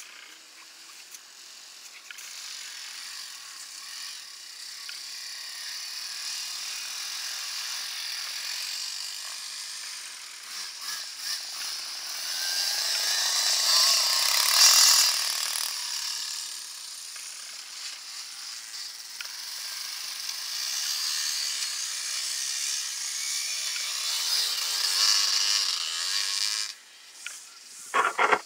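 Enduro dirt bike engine revving as the bike rides through a snowy corner, getting louder to a peak about halfway through and then fading. A second bike's engine rises with its revs going up and down, then the sound cuts off suddenly near the end.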